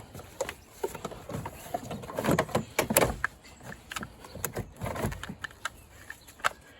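Replacement car battery being lowered and set into its tray in the engine bay: a run of irregular knocks, clicks and scrapes as it goes into place.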